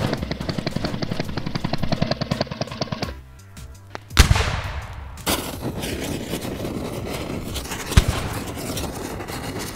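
Cartoon crash sound effects: a rapid machine-gun-like rattle of clicks for about three seconds, then a short lull and a sudden loud bang about four seconds in. After it comes a steady noisy crackle, with one sharp crack near the end, fitting a burning-wreck effect.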